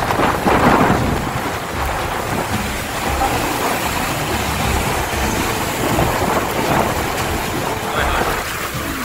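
Heavy rain pouring down in a storm: a steady, dense hiss with a low rumble underneath, a little louder in the first second.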